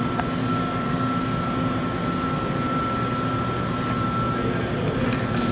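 Steady mechanical drone with a constant high-pitched whine over it.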